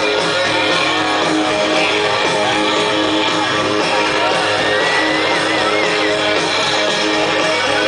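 Live electric-guitar solo in a rock concert, heard loud through the stage sound system from the audience. About five seconds in, a high lead note is held and shaken with vibrato for a second or so.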